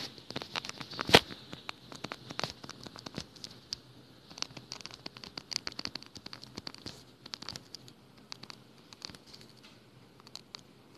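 Stylus tapping and scratching on a tablet's screen while equations are handwritten: a quiet, irregular run of light clicks and short scrapes, with one sharper tap about a second in.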